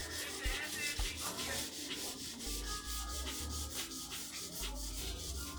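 Sandpaper rubbed by hand over a VW Mk1 Golf's painted steel bodywork, in rapid, even back-and-forth strokes. This is the car being sanded down as prep for a respray.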